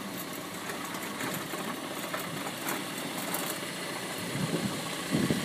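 Small wooden hand wagon on rubber-tyred wheels rolling over paving stones as a dog pulls it: a steady rumble and rattle with light clicks.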